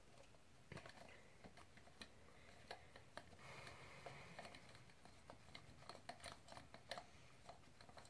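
Faint, irregular small clicks and ticks of a screwdriver tightening the float bowl screw on a dirt bike carburetor.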